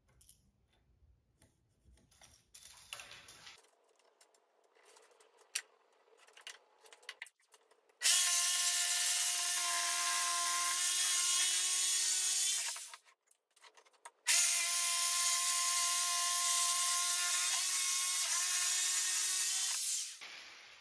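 Corded jigsaw cutting through a softwood 2x4, its motor whine steady under the blade's rasping, in two runs: the first starts about eight seconds in and lasts about five seconds, then after a short pause it cuts again for about six seconds. Before the cutting, only quiet handling sounds from the pencil and tape measure.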